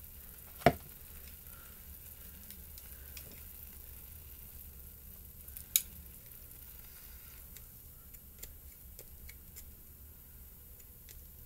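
Water heating in a shallow pan around a block of instant ramen, a faint steady hiss, with light clicks from wooden chopsticks. Two sharper knocks come about a second in and near the middle.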